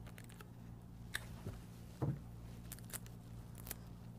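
Faint handling of cotton swabs and tape on a sheet of paper: a few soft taps and rustles, the loudest about two seconds in, over a steady low hum.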